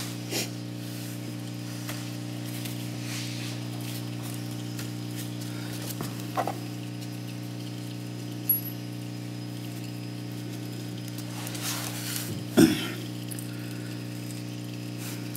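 Steady low hum with a few soft clicks and knocks from parts being handled; the loudest knock comes about twelve and a half seconds in.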